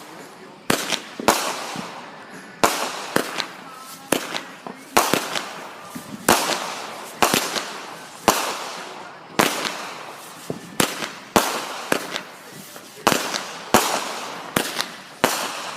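Aerial fireworks going off in quick succession: about twenty loud bangs, one to two a second, each followed by a fading crackle and hiss.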